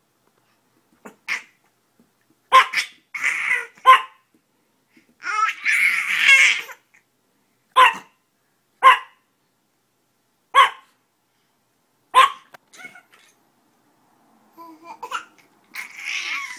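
A chihuahua yaps sharply, about six single barks a second or two apart. A baby laughs and squeals between the barks, in longer stretches.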